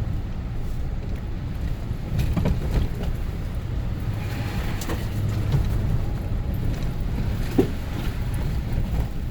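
A car or truck driving on a rough mountain road: a steady low engine and tyre rumble, with a couple of light knocks from the vehicle about two and a half and seven and a half seconds in.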